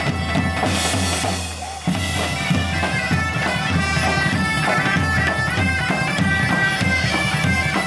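A band of several bagpipes playing a melody over their steady drone, backed by large drums beating a regular rhythm. The music drops away briefly about a second and a half in, then comes back in full just under two seconds in.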